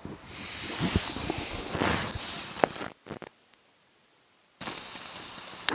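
Gas hissing from a camping stove burner fed by a hose from a butane cartridge as it is turned on and lit, with a few sharp clicks in the first seconds. The sound cuts out for over a second, then the burner's steady hiss resumes.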